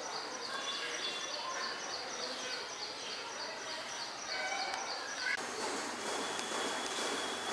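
Outdoor garden ambience: birds giving short chirps over a high call that repeats about three times a second. About five seconds in, the sound cuts abruptly to a steady hiss with a thin, continuous high tone.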